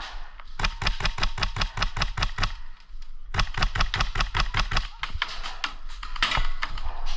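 Airsoft guns firing in rapid bursts, roughly a dozen shots a second: one long string about half a second in and another a little past the middle, then scattered shots.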